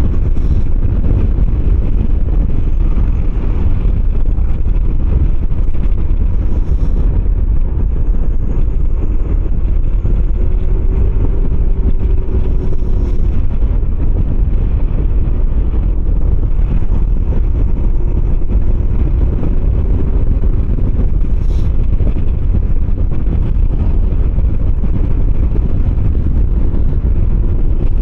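Steady riding noise from a Kymco 125cc motor scooter at cruising speed: heavy wind rush over the microphone with the engine's faint, slightly wavering note underneath, and a few light clicks.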